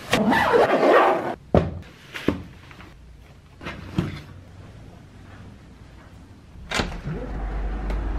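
Soft-sided suitcase lid flopped shut with a rustle of fabric, followed by a few separate knocks and clicks. A low rumble comes up near the end.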